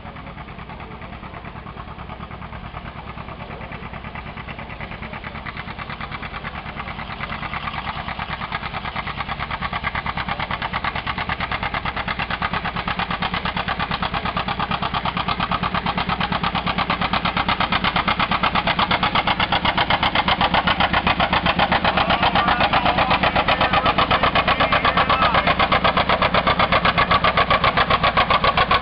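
Pulling tractor's engine running hard under load, with a fast, even exhaust beat. It grows steadily louder over the first two-thirds as the tractor comes down the track, then holds loud.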